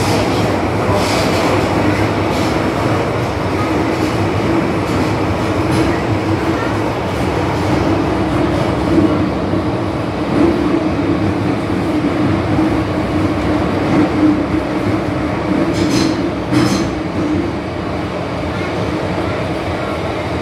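MTR M-Train metro car running through a tunnel, heard from inside the car: a steady rumble of wheels on rail with a droning howl from the traction equipment, the 'ghost howl' this car is known for, which swells in the middle. Two sharp clicks come near the end.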